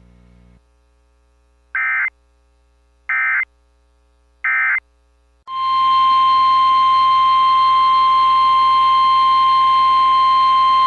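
Three short bursts of Emergency Alert System data tones, the end-of-message signal. About halfway through, the steady single-pitch Weather Radio warning alarm tone starts and holds over radio hiss.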